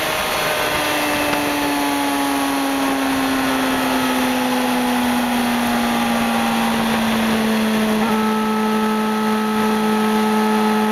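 Suzuki GSX-R sportbike's engine running at a steady cruise, its note sinking slowly as the bike eases off, over a constant rushing noise. The engine note shifts slightly about eight seconds in.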